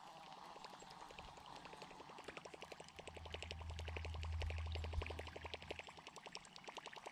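Baitcasting reel being cranked to retrieve line, giving a fast, even ticking of about ten ticks a second. A low hum swells and fades in the middle.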